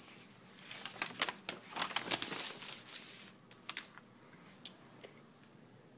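A sheet of paper rustling and crinkling as it is handled, for about two seconds starting a second in, followed by a few faint ticks.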